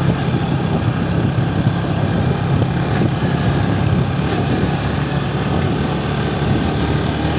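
A vehicle engine running steadily while travelling along the road, with a constant rushing road and wind noise over it.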